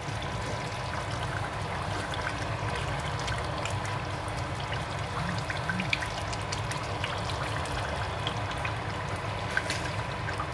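Pot of chicken and shaki stew bubbling at a simmer as it is stirred with a spoon, with many small pops of bursting bubbles. A faint steady hum runs underneath.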